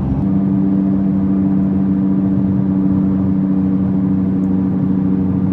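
Worn rear wheel hub bearing on a 2022 Nissan Sentra humming while the car drives: a steady drone with two held tones, the sign of a bearing that needs replacing.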